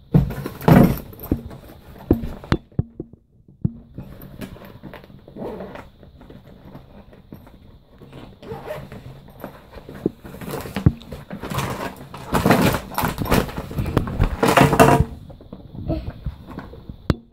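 A fabric backpack being handled and shaken out, with plastic toy capsules and foil packets tumbling and clattering onto a table: scattered knocks and rustling, busiest about three-quarters of the way through.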